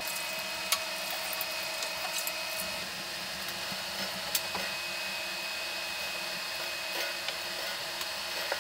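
Steady machine hum holding several fixed tones, with scattered light clicks and knocks from dishes and utensils being handled during washing up and wiping a steel table.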